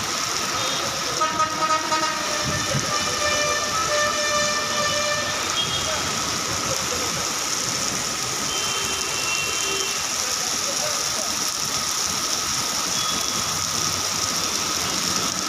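Heavy rain pouring steadily onto a flooded road, with traffic passing. A vehicle horn sounds for about four seconds starting about a second in, and another brief horn comes about nine seconds in.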